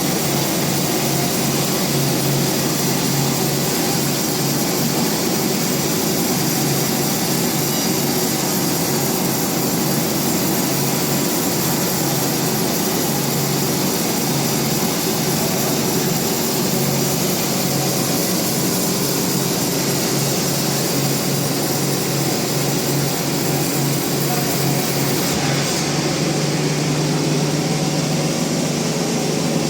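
Band sawmill running steadily: a continuous machine drone with a low hum and a high hiss. About 25 seconds in, the high hiss thins out while the low hum grows stronger.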